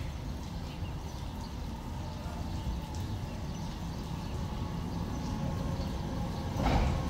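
Tram running on street track: a steady low rumble with a faint whine, slowly growing louder, and a louder clatter near the end.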